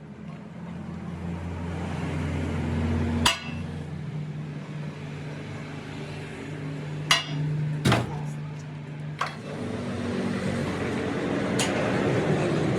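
A steady low mechanical hum that slowly grows louder, with about five sharp metal knocks spread through it, typical of hammer blows on a steel truck rim.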